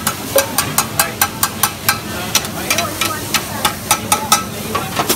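Metal spatulas clanking and scraping against a large wok, about four strikes a second with a brief pause midway, as radish cake cubes are stir-fried over a steady sizzle of hot oil.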